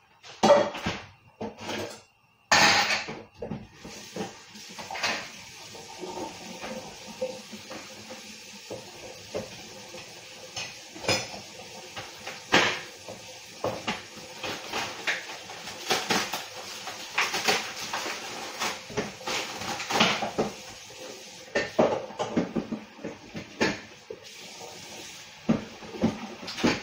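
Dishes, pans and utensils clattering at a kitchen sink with many knocks and clinks, over a steady hiss of running tap water that starts about two and a half seconds in and stops near the end, as pork belly slices are washed.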